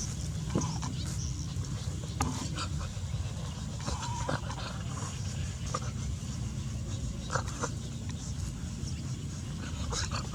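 A dog's small sounds with scattered short clicks, over a steady low hum.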